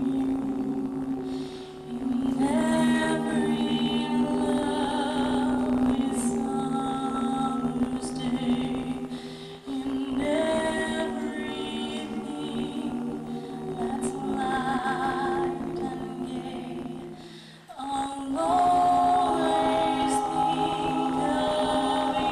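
A choir singing in several parts, holding long notes with some vibrato, with short breaks between phrases every several seconds.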